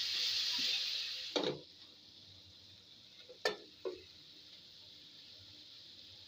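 Chicken pieces sizzling in oil in a pan; the loud sizzle cuts off sharply about a second and a half in. After that a wooden spatula knocks against the pan twice over a faint sizzle.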